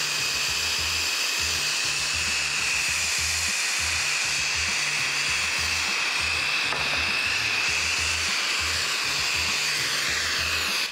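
TurboTorch hand torch flame hissing steadily as it heats a copper pipe coupling to draw solder into the joint.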